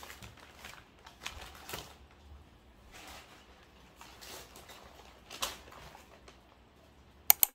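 Brown paper grocery bags rustling and crinkling as they are handled and set down on a table, in short scattered bursts. Two sharp clacks near the end.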